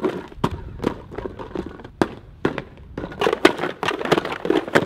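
A small white box being slammed again and again onto asphalt: a quick run of sharp cracks and clattering bangs, about two a second, coming thicker in the second half.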